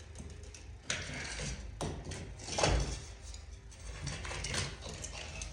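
Knocks and scrapes of old plaster and lath being broken and worked off a wall, four or so short strokes, the longest and loudest a rough scrape a little past halfway.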